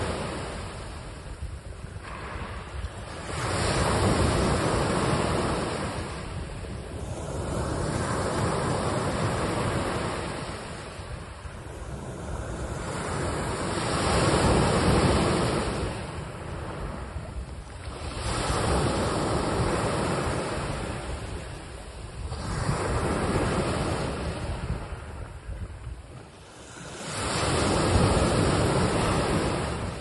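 Sea waves washing onto a rocky shore, the rush of water swelling and drawing back about every four to five seconds.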